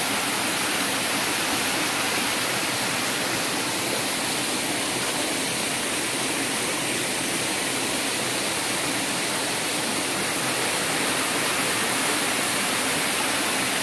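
Small waterfall pouring between boulders into a rock pool: a steady rushing of water.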